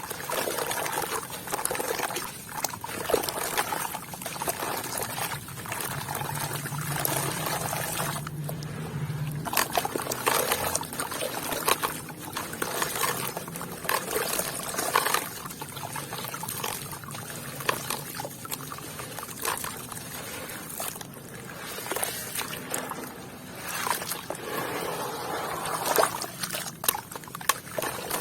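Water pouring and trickling through wet sand and red dirt, with soft crumbling and many small sharp clicks of stones knocking together.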